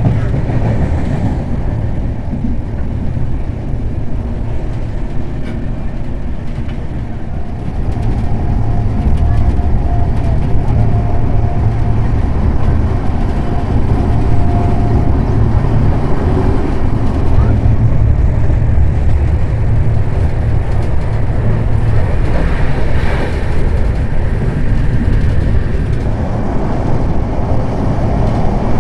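Train running on the rails with a steady low rumble that grows louder about eight seconds in.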